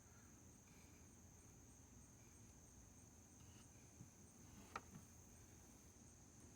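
Near silence: a faint, steady, high-pitched trill of crickets, with one faint click near the end.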